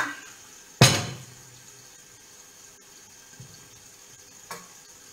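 A single sharp knock about a second in, as of a utensil or dish hitting a kitchen counter or cutting board, followed by two faint small knocks and quiet.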